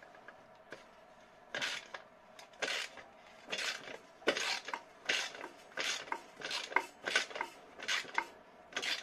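Socket ratchet on an extension clicking in short rasping runs, about one every 0.7 s after the first second and a half, as the handle is swung back and forth to undo the last bolt of the turbo-to-particulate-filter joint.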